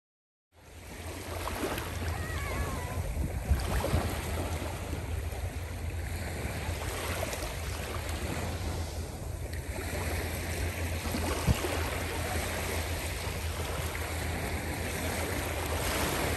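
Small waves washing up and draining back on a coarse-sand beach: a steady wash of surf that starts abruptly about half a second in, with a low wind rumble on the microphone.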